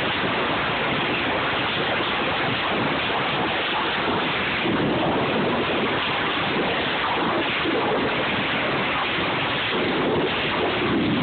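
Steady din of sawmill machinery on a lumber trimmer line, an even, unbroken roar.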